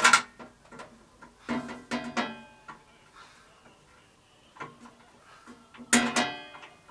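Several separate metallic clanks, each ringing on briefly before dying away, with quiet gaps between; the loudest comes near the end. It sounds like metal tools or fittings being knocked and set down.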